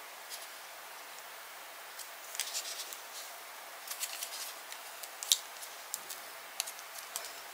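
Light, scattered clicks and brief rustles of paper and cardstock pieces being handled and pressed into place on a desk.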